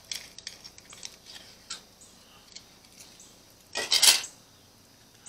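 A thin carburetor jet-cleaning wire is worked back and forth in a small-engine carburetor's fuel port, reaming gunk out of it, with faint metallic clicks and scrapes and the clink of the kit's other wires. There is a louder brief scrape about four seconds in.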